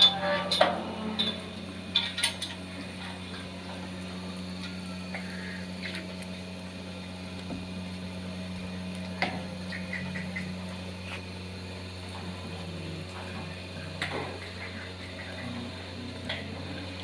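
Steady low machine hum, with sharp metallic clanks and knocks from steel pipe-rail gates and fencing: a quick cluster in the first couple of seconds and a few single knocks later.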